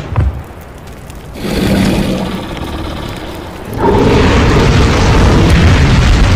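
Intro sound effects: a rumbling swell from about a second and a half in, then a loud, sustained booming fire blast from about four seconds in.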